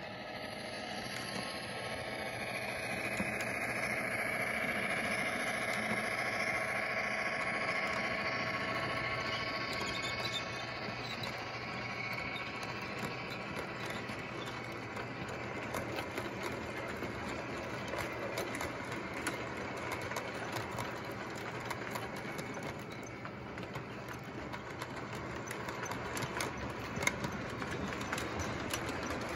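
Williams O-gauge NW-2 switcher locomotives, a series-wired pair, running with a nine-car train on three-rail tubular track: a steady electric-motor and gear whine in the first ten seconds or so, then an even mechanical rumble with many small clicks of wheels over the rail joints as the cars pass.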